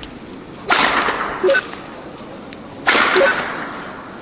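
Two badminton smashes about two seconds apart, each a sharp whip-like crack of racket on shuttlecock with a swishing tail. Each is followed a moment later by a short, fainter burst with brief pitched blips.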